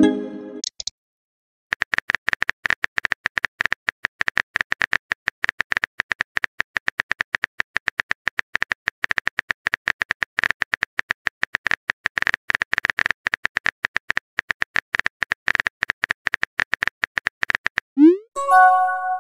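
Rapid, even clicking of a phone's on-screen keyboard in a texting-story app, key after key. Near the end a rising swoop and a short chime mark the message being sent.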